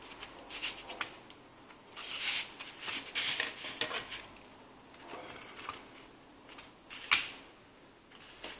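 Small hand tools and the parts of an opened tablet being handled: light clicks and taps, with a stretch of scraping and rustling about two to four seconds in and a single sharp click about seven seconds in.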